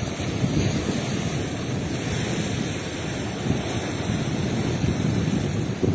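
Wind buffeting the microphone over the wash of the sea, a steady low rumbling noise with no breaks.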